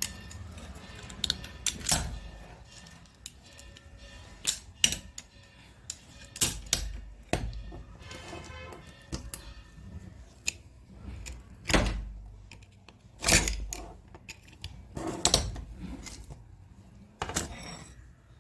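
Irregular clicks, knocks and metal clinks of a rotary hammer drill and hand tools being handled, as the tool is worked on to free a stuck bit. The sharpest knocks come about two, twelve, thirteen and fifteen seconds in.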